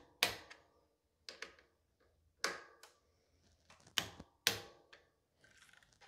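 Small torque wrench working on the bicycle's disc-brake caliper mounting bolts as they are torqued to 8 newton metres: about half a dozen sharp metallic clicks, irregularly spaced, with a faint quick rattle near the end.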